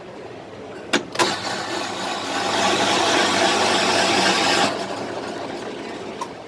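Electric ice shaver: two sharp clicks, then the motor and blade shaving a block of ice for about three and a half seconds, a loud even rasp over a steady hum that stops suddenly.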